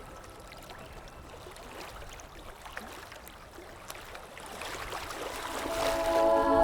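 Gently trickling and lapping water with faint scattered drips. About five seconds in, sustained soft music tones swell in over it.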